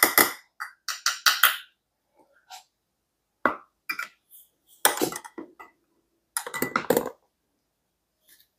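Glassware and a plastic siphon tube being handled: a small glass bowl and the tube clinking and knocking against a glass jar and set down on a table, in several short clusters of clinks.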